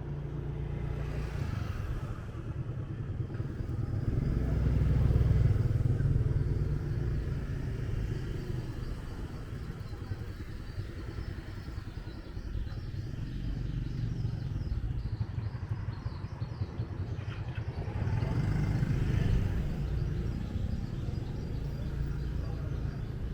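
Motorbike engine running at low speed with road noise, louder twice: about five seconds in and again near the nineteen-second mark.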